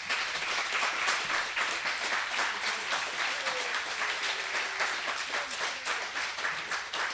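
Audience applauding: many hands clapping in a dense, steady patter, starting at once as the talk ends.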